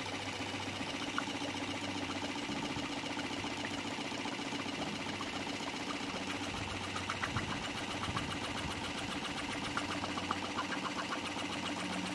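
Homemade piston air compressor, driven by a small 12-volt DC motor through a flywheel and connecting rod, running steadily at full voltage with a fast even rhythm. From about halfway in, air from its outlet hose bubbles into a glass of water, adding small scattered pops.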